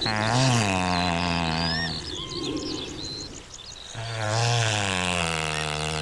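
Great bustard giving two long, deep calls, each about two seconds long, the second starting about four seconds in; each bends up and down in pitch at its start, then holds steady. Small birds chirp in the background.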